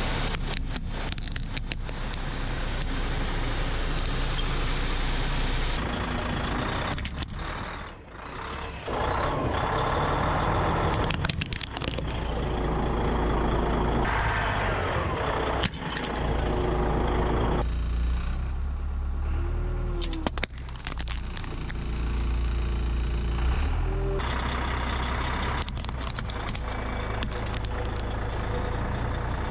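Car and truck engines running low as the tyres roll slowly over plastic toy figures and glass Christmas baubles, with sharp cracks and crunches as they are crushed. The sound is made up of several short clips that cut abruptly one to the next.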